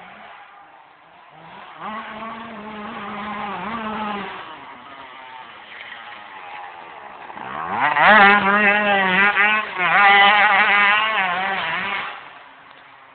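Yamaha YZ125 two-stroke dirt bike engine revving and accelerating, its pitch rising and dipping as the rider works the throttle. It climbs sharply to its loudest in the second half, then fades away near the end.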